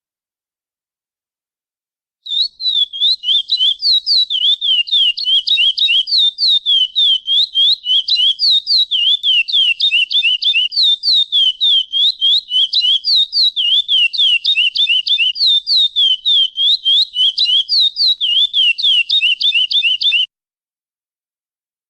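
Curió (chestnut-bellied seed finch) singing the classic 'praia' song: a long unbroken run of clear whistled notes, about four a second, each sliding down in pitch. It starts about two seconds in and stops suddenly near the end.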